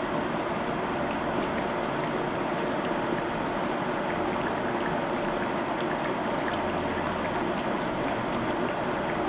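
Olive oil bubbling and sizzling around shrimp and squid in a small dish as the cazuela simmers: a steady sizzle with small pops.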